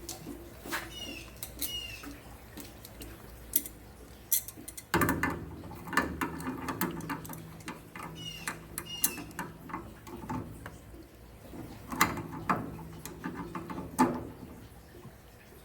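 Hand-tool work on a water heater fitting: scattered clicks and knocks of metal tools and parts, with two pairs of short high squeaks as a threaded part is worked loose. A low steady hum comes in about five seconds in.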